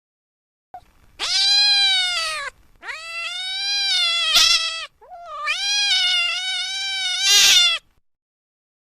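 Domestic cat meowing: three long, drawn-out meows one after another, each rising and then falling in pitch, the last one loudest near its end.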